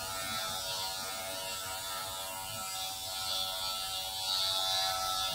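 Electric shaver buzzing steadily as it is run over a man's head, getting a little louder and hissier about three seconds in.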